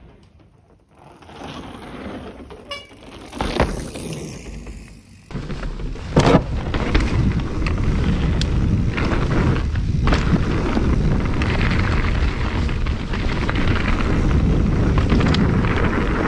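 Giant Trance mountain bike ridden on a dirt trail: tyres rolling and rattling over the ground with wind buffeting the microphone, loud and steady from about five seconds in, with one sharp knock soon after. Before that there is a quieter stretch of rustling and knocks.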